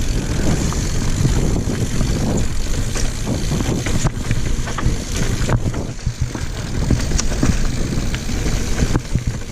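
Mountain bike riding over a rough singletrack trail: a steady rumble with frequent clicks and rattles.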